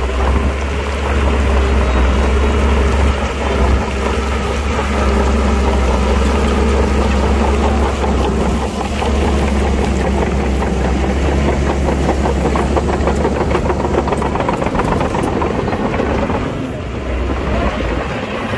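Heavy earthmoving machine's diesel engine running steadily with a deep hum. A fast clatter runs under it through the second half, and the engine eases off briefly near the end.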